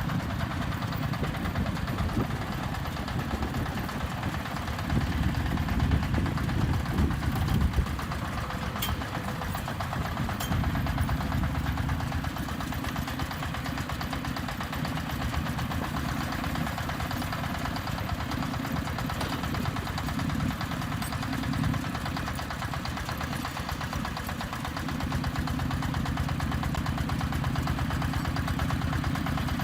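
Diesel engine of a self-loading concrete mixer running steadily, a little louder for a few seconds about five seconds in.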